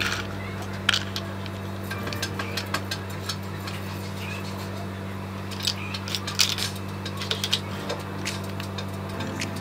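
Plastic toy train track pieces clicking and clattering as they are handled and fitted together, a run of sharp clicks that is busiest between about six and seven and a half seconds in, over a steady low hum.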